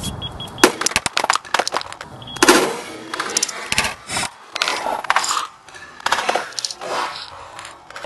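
Hammer smashing a plastic toy refrigerator: a series of sharp blows with plastic cracking, breaking and clattering apart.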